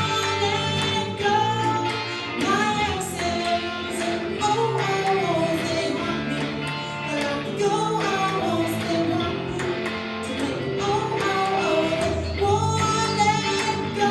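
A woman singing with strummed guitar accompaniment, the melody wavering and held on long notes over a steady strum.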